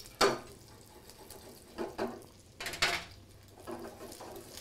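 Metal spatula knocking and scraping against a frying pan and a metal tray: a sharp clank just after the start, then a few softer knocks and a scrape, over the faint sizzle of an omelette frying in butter.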